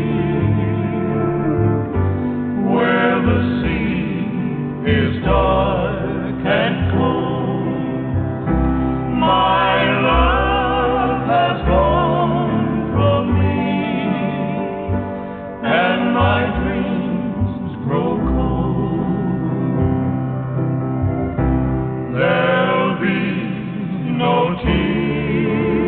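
Music: a song with singing over a bass line and accompaniment.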